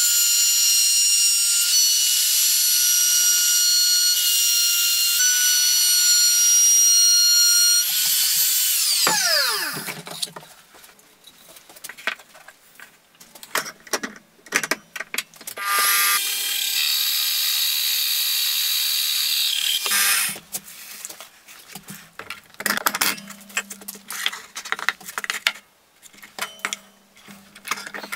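Handheld trim router running with a steady high whine while routing the edge of a hardwood strip, then switched off and winding down with falling pitch. After that come scattered knocks and clicks of handling, a second power-tool motor running for about four seconds, and more clicks and knocks as the workpiece is clamped at a bench drill press.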